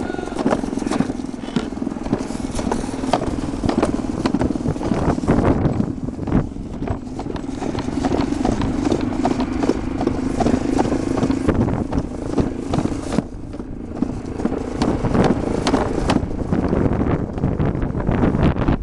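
Alpine slide sled running fast down its trough track through the curves: a steady rolling rumble with many quick rattling knocks.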